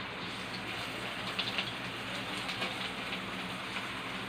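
Tuyo (dried fish) frying in oil in a pan: a steady sizzle with scattered crackling pops. The fish is nearly cooked.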